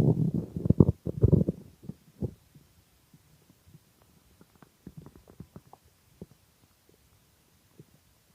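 Hungry stomach growling: loud, irregular gurgling rumbles in the first two seconds, then only faint scattered gurgles and pops.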